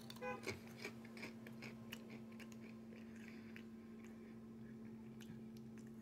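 A person chewing crisp fried banana chips, faint crunching and soft clicks, loudest in the first couple of seconds, over a steady low hum.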